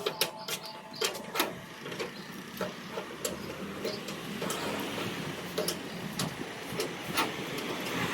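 Irregular sharp clicks and knocks over a low steady hiss.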